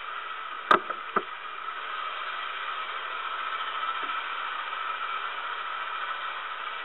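LGB G-scale model train running with its LGB 2060 diesel and diesel sound unit: a steady mechanical whir and hiss that grows a little louder as the freight cars pass close. Two sharp clicks come about a second in.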